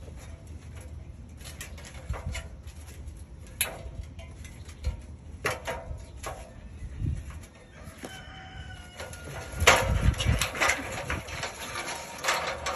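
Scattered knocks and clanks from an aluminium extension ladder as someone steps down its rungs. A rooster crows once about eight seconds in, and a loud thump follows just after.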